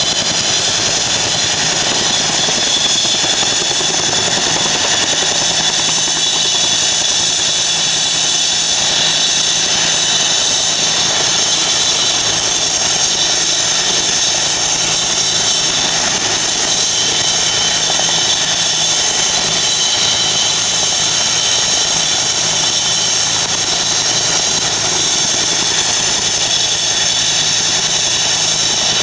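Two helicopters' turbines and rotors running together: a Eurocopter EC 135 turning on the pad close by and a Bell UH-1D coming in to land. The sound is loud and steady, with a high turbine whine over the rotor noise.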